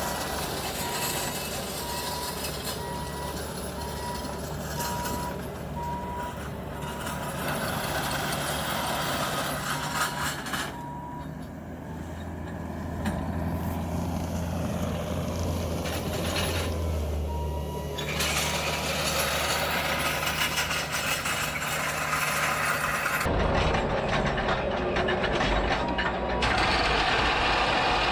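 Bobcat T650 compact track loader's diesel engine running under load while grading, with its reversing alarm beeping steadily at times as it backs up.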